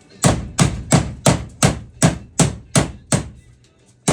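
Hammer blows on a metal floor patch plate: about nine evenly paced strikes, roughly three a second, stopping shortly before the end.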